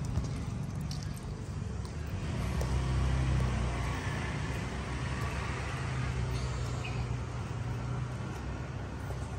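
A steady low rumble, with a few faint clicks and crunches of sulcata tortoises biting into raw guava.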